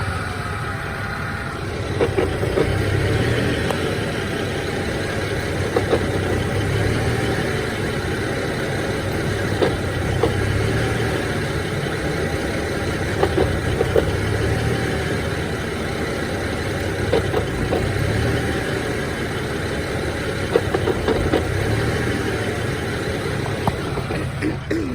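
BMW E90 engine idling warm with the clutch pedal released, and an irregular clacking from underneath on the driver's side that comes in short clusters every few seconds. The clacking goes away when the clutch pedal is pressed. A throwout bearing has been suggested as the cause, which the owner doubts.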